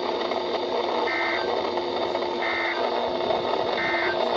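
Three short bursts of Emergency Alert System digital data, the End of Message code, each about a third of a second long and a little over a second apart. They sound over the steady hiss of a weather-radio receiver.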